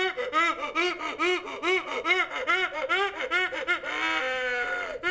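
A woman's high, loud fit of laughter in rapid rhythmic "ha" syllables, about three a second, each rising and falling in pitch. About four seconds in, the laughing turns into one long drawn-out held note.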